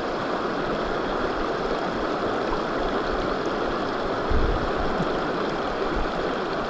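Shallow rocky stream running steadily close by, with a brief low thump about four seconds in.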